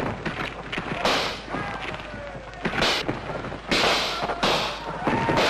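About five gunshots from muskets, spaced irregularly, with scuffling between them.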